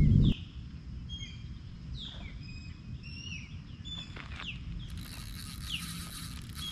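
Birds chirping: many short whistled calls, several falling in pitch, with a few faint clicks. A loud low rumble cuts off sharply just after the start.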